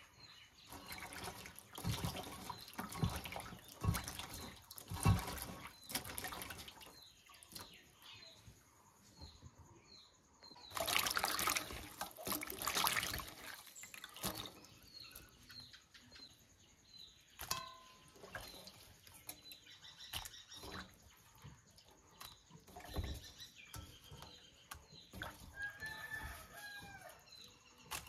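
Water splashing and dripping as hands swish and lift small shrimp in a metal basin of water, with a louder stretch of splashing about eleven seconds in. A bird chirps repeatedly in the background.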